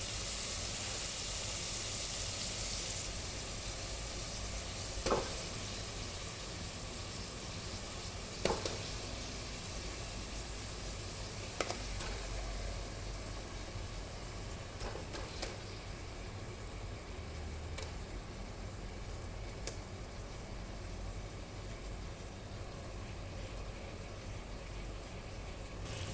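Chicken frying in hot oil, a steady sizzle with the hiss briefly stronger at the start, broken by a few sharp clicks of a utensil against the pan.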